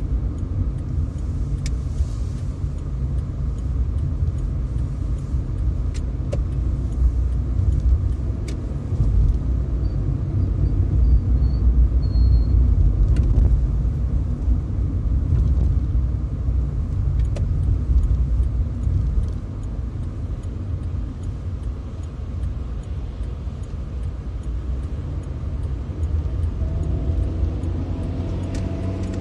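A car driving along the road: steady low rumble of the engine and tyres, with a few faint ticks.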